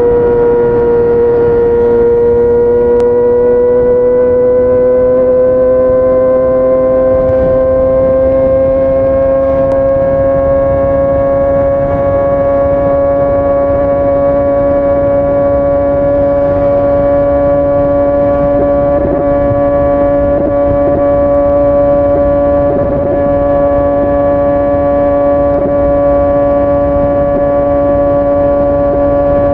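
Kawasaki ZX-25R's inline-four engine through a Yoshimura R55 slip-on exhaust, held at steady high revs under way. Its pitch rises slightly over the first ten seconds and then holds steady.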